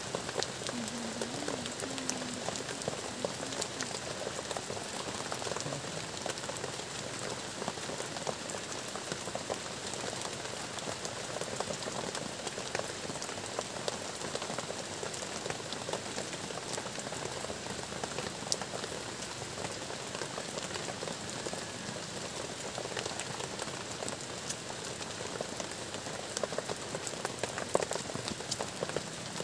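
Steady rain falling on a plastic tarp shelter overhead: an even hiss of many small drop ticks.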